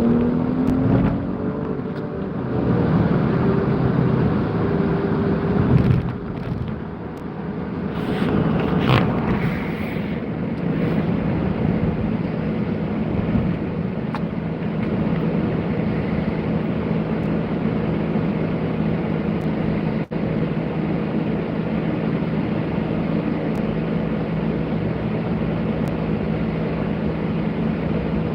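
Road vehicles running steadily with tyre and engine noise and a low hum throughout; an engine rises in pitch over the first couple of seconds.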